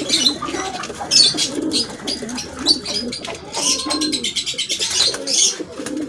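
Domestic pigeons cooing continuously in a loft, with short high-pitched chirps from smaller birds mixed in.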